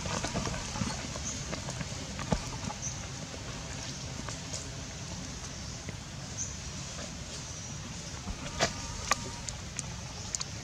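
Outdoor ambience: a steady low background rumble with scattered sharp clicks and rustles as long-tailed macaques move over dry leaves on bare ground, and faint short high chirps now and then.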